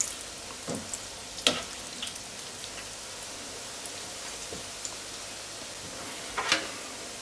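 Oil at about 160–170 °C sizzling and bubbling steadily around a basket of Mutzenmandeln (small almond-shaped dough pieces) deep-frying in a Tefal Oleoclean deep fryer. A few short sharp knocks break in, the clearest about a second and a half in and near the end.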